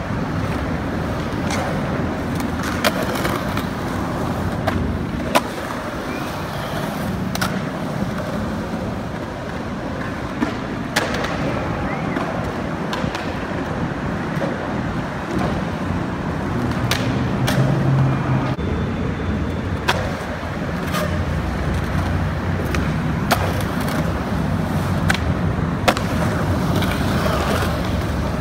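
Skateboard wheels rolling over concrete, with sharp clacks of the board every few seconds from tail pops and landings.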